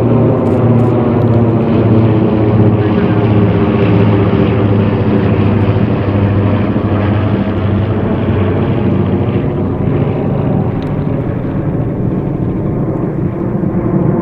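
Formation of three Lockheed P-38 Lightnings and two Republic P-47 Thunderbolts flying past, their Allison V-12 and Pratt & Whitney R-2800 radial piston engines blending into one loud, steady drone of many overlapping tones. The pitch eases down slightly in the first few seconds as they pass.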